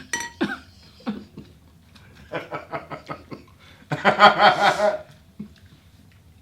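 A person laughing in short bursts, with a louder burst of laughter about four seconds in.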